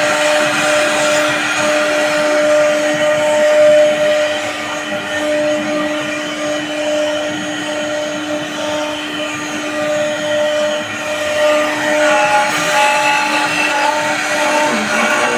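CNC router spindle running as it mills an MDF sheet: a steady motor whine over cutting noise, with extra higher tones joining about twelve seconds in.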